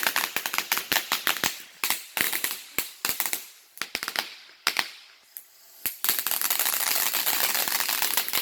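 Firecrackers going off in a rapid, irregular run of sharp bangs. About six seconds in, the bangs thicken into a dense, continuous crackle.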